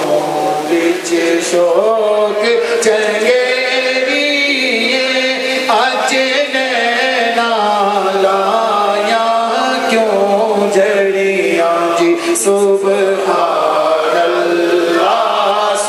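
A man singing a devotional song into a microphone, in long, drawn-out notes that waver and bend in pitch.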